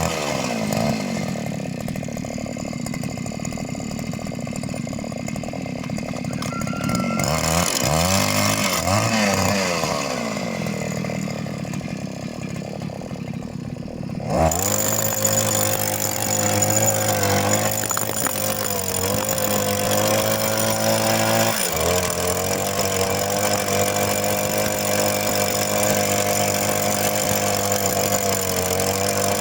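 Two-stroke petrol rock drill engine running. For the first half it revs up and down unevenly, then about halfway through it suddenly opens up to run hard and steady at high revs, dipping briefly once a few seconds later.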